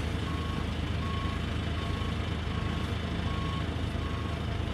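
Backhoe loader's diesel engine running steadily under load while its reversing alarm beeps evenly, about once every three-quarters of a second, as it backs up pulling a locomotive off a trailer.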